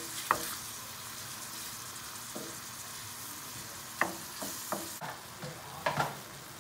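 Shrimp sizzling in a stainless steel sauté pan as they are stirred and turned with a wooden spoon; a steady hiss, with the spoon knocking against the pan once near the start, a few times about four seconds in, and loudest near the end.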